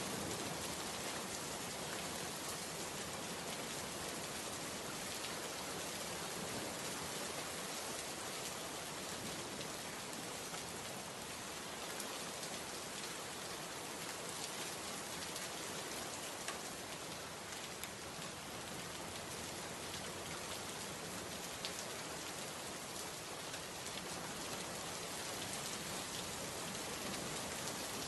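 Heavy rain falling steadily on wet paving: an even hiss of rain with scattered drop ticks.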